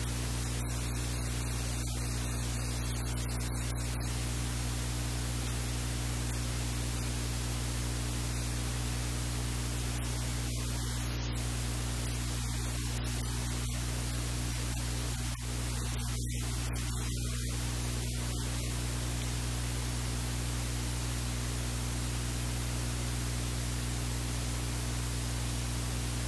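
Steady hiss of recording noise with a low electrical hum underneath, unchanging throughout; no cooking sound stands out above it.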